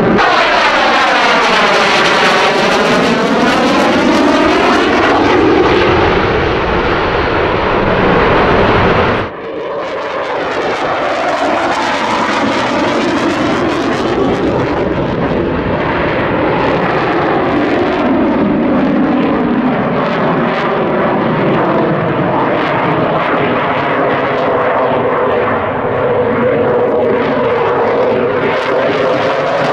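An F-22 Raptor's twin jet engines running loud through a pass, with sweeping, phasing tones as it climbs away. After an abrupt cut about nine seconds in, a Dassault Rafale's twin jet engines running through a display pass, again with slow sweeping tones.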